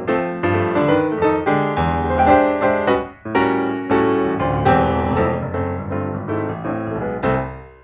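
Background piano music, a steady run of notes that fades out near the end.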